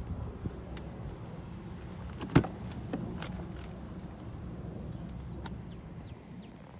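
A car door latch clicks sharply open once, about two and a half seconds in, with a few lighter clicks and handling knocks around it over a steady low rumble.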